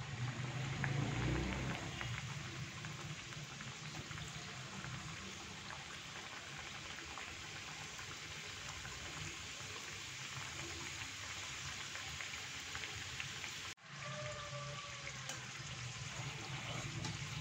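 Gujiya pastries deep-frying in hot oil in a kadai: a steady bubbling sizzle with fine crackles. It drops out for an instant about fourteen seconds in.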